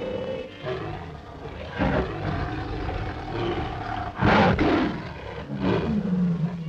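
Lions roaring, with the loudest roar about four seconds in, on an old film soundtrack.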